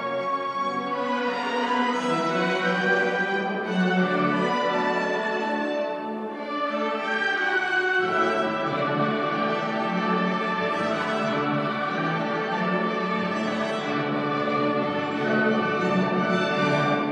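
School orchestra playing a classical piece, bowed strings to the fore, with long held notes. Deeper bass notes come in about halfway through.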